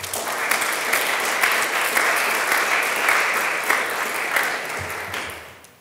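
Audience applauding in a lecture hall, steady for about five seconds, then dying away near the end.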